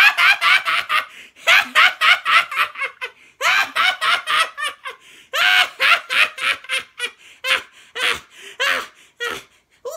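A person laughing hard in a high-pitched voice, in several runs of quick ha's that thin out near the end.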